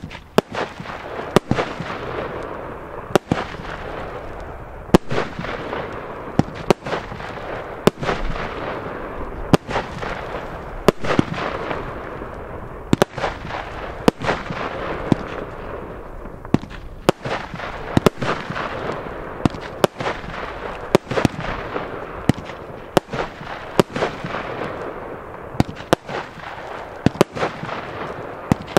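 Skull Crusher multi-shot firework cake firing tube after tube, with a sharp bang about every one and a half seconds. A crackle fills the gaps between the bangs as the stars burst.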